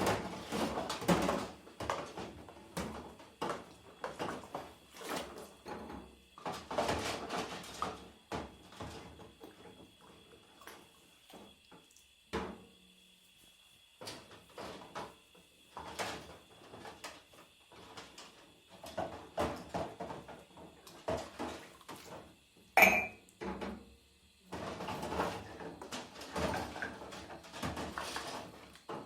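Washing up by hand: dishes and cutlery clattering and clinking in irregular bursts, with one sharp ringing clink a little over three-quarters of the way through.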